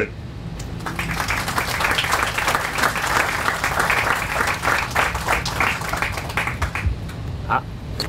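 Audience applauding, building up about half a second in and dying away near the end.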